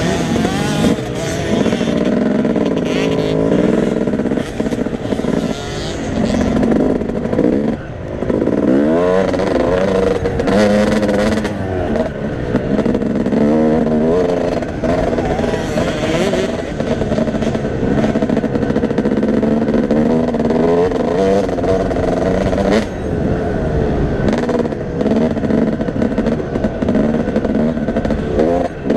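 Motocross bike engine being ridden, revving up and dropping back again and again, its pitch rising and falling with the throttle and gear changes, picked up by a camera on the rider's helmet.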